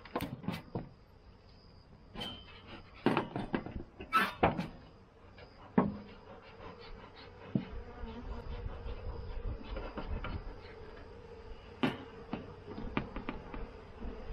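Honeybees buzzing at an opened hive, with a steady hum, while a metal hive tool knocks and scrapes against the wooden inner cover, prying it up to break the propolis seal. The sharpest knocks come about three and four seconds in, and again near twelve seconds.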